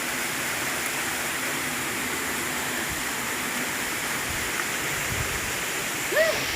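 Waterfall rushing: a steady, even roar of falling water. A short, high, curving call cuts in briefly near the end.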